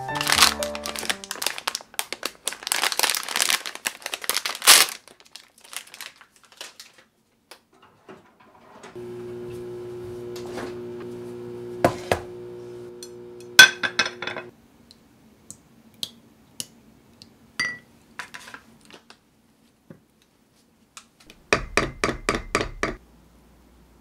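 Plastic food packaging crinkling and rustling as it is handled for the first five seconds, followed by scattered light clicks and knocks of kitchen items. A steady electric hum runs for about five seconds in the middle, and a quick run of clinks comes near the end.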